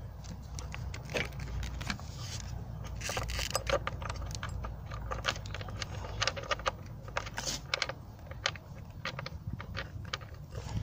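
Irregular metallic clinks and rattles as a car battery's hold-down bracket, its bolt and hand tools are handled and refitted, over a low steady background hum.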